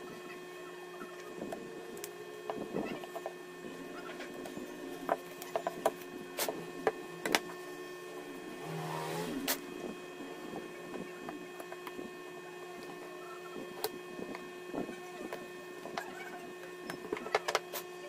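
Scattered small clicks and taps of a Vivo Y51 smartphone's plastic frame and internal parts being handled and pried apart during disassembly, over a steady low hum. A short scraping rasp about nine seconds in.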